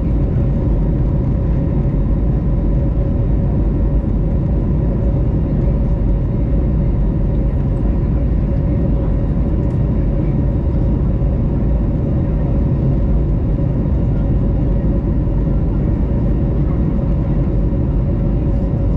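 Steady cabin noise of an Airbus A321neo climbing, heard from a window seat: the low rumble of its Pratt & Whitney PW1133G geared turbofans at climb power, with a steady mid-pitched hum running through it.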